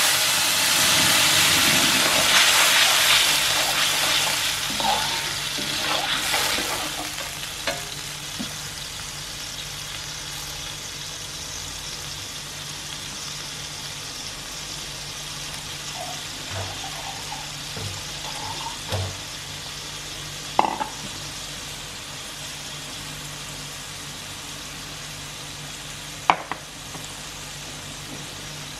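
Ground chili spice paste poured into hot oil in a wok, frying: a loud burst of sizzling that dies down over the first several seconds into a steady, quieter frying hiss. A metal utensil scrapes and taps against the wok a few times as the paste is stirred.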